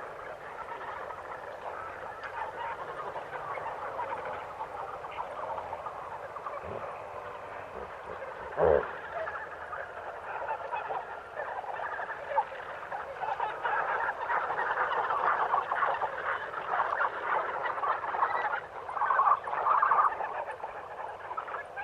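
A dense chorus of many animals calling at once, with a brief louder call about eight and a half seconds in and a louder, busier stretch in the second half.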